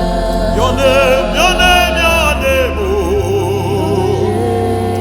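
Gospel worship music: wavering sung vocal lines over sustained bass notes that change pitch about every second or two.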